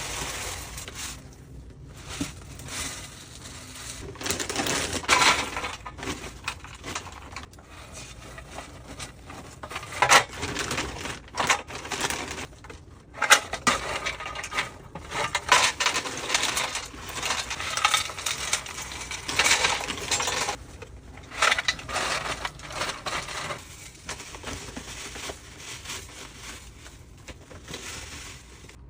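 Irregular clinks, clatters and crunchy rustling of dried herbal medicine ingredients being handled and poured during herbal compounding.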